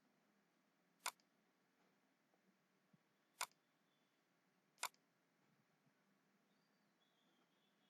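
Three sharp computer mouse clicks, spaced a second or two apart, over near silence.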